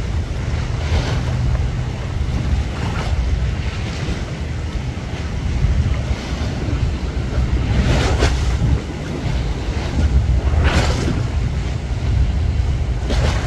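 Wind buffeting the microphone over the wash of harbour water, with a few louder swooshes of waves splashing about 8 and 11 seconds in and again near the end.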